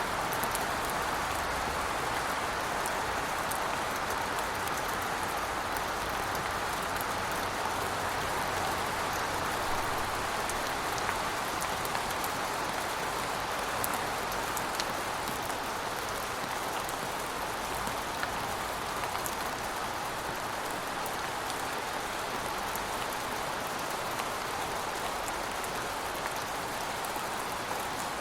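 Steady rain falling on city surfaces, an even hiss with scattered drop ticks.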